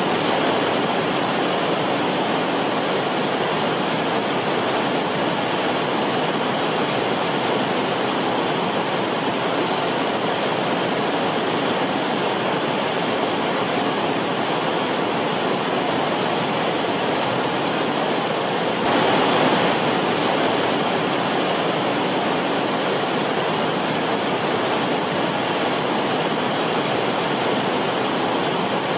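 Forest stream water rushing steadily, briefly a little louder about two-thirds of the way through.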